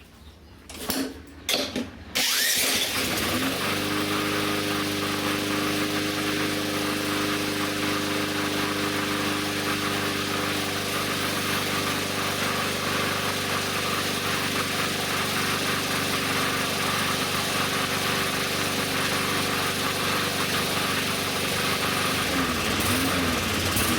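Small gasoline engine spun by an electric drill in two short bursts, catching about two seconds in and then running steadily, its speed wavering briefly near the end. A hard, smoky start from a cylinder loaded with oil.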